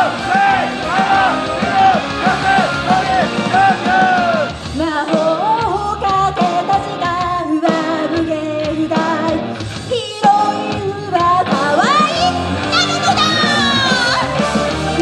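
Live idol pop song in a rock style: voices singing a melody over a loud band backing, with shouted parts mixed in.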